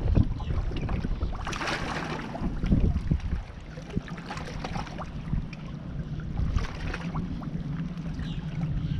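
Shallow water sloshing and splashing against shoreline rocks as a snook is eased back into the water by hand, with wind rumbling on the microphone. A louder burst of splashing comes about a second and a half in, and a steady low hum joins at about three and a half seconds.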